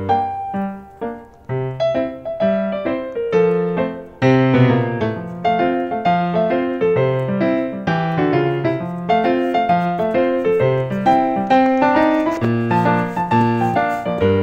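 Background piano music: a steady run of struck notes over a low bass line.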